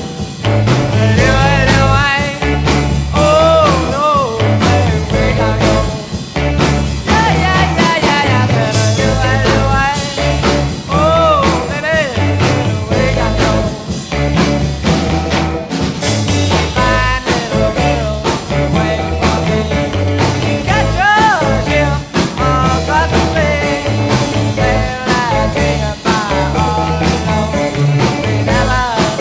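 Background rock music with a repeating bass line and a lead melody that bends in pitch.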